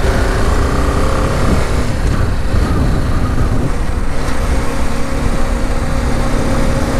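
BMW G 310 GS's single-cylinder engine running as the motorcycle is ridden, with wind noise over the microphone. The engine note holds steady from about halfway through.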